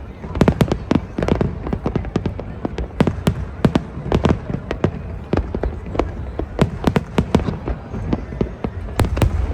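Fireworks going off: a rapid, irregular run of sharp bangs and crackles over a steady low rumble.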